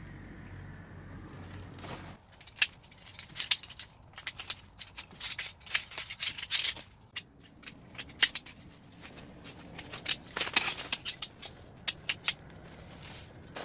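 A low steady hum for about two seconds, then irregular clicks, rustles and scrapes of gear being handled, with short louder flurries.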